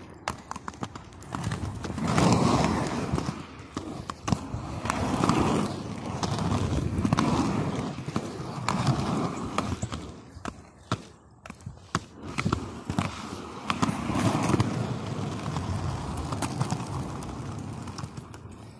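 Skate wheels rolling over rough concrete, a rumbling that swells and fades about every two seconds, with many sharp clicks.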